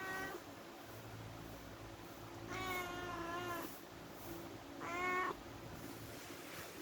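Domestic cat meowing three times: a short meow, then a long drawn-out one of about a second, then a shorter one.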